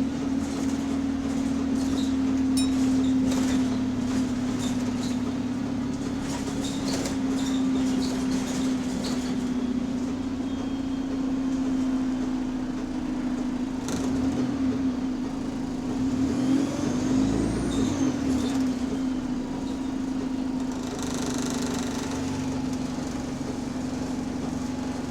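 Bus engine and drivetrain running, heard on board as a steady hum, with short repetitive knocks in the first part whose pace follows engine speed. The passenger thinks the knocking comes from underneath the bus, maybe a loose part.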